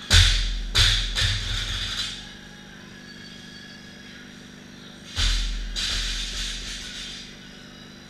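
A barbell loaded to 225 lb with rubber bumper plates is dropped onto rubber gym flooring: a heavy thud, two bounces and plate rattle. About five seconds in, a second loaded barbell is dropped with another thud and rattle.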